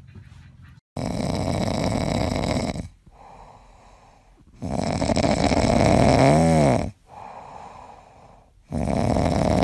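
Pug snoring in its sleep: three long, loud snores about four seconds apart, with quieter breaths between them. The middle snore carries a whistling tone that rises and falls.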